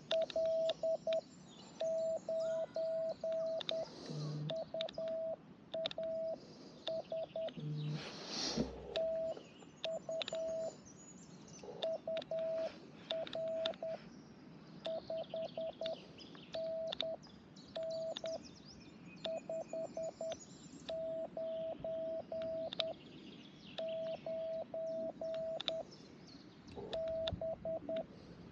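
Morse code on an amateur radio transceiver: a single steady mid-pitched tone keyed on and off in short dits and longer dahs, grouped into characters and words with gaps between them.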